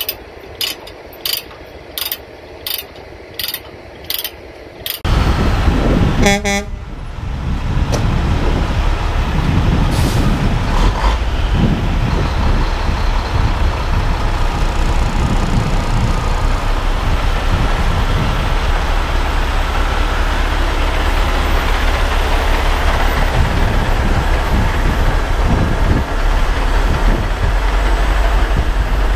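Heavy diesel trucks running close by, a semi tractor and a heavy wrecker, giving a loud, steady engine rumble. For the first few seconds, before the rumble starts, there is a regular clicking about every two-thirds of a second.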